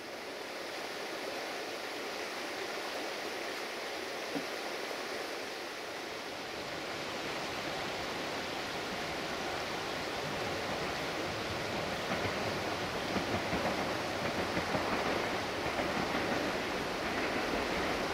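Steady rushing noise of the river flowing through the canyon. A low rumble builds and the whole grows slowly louder in the second half as a Desiro diesel railcar approaches out of sight.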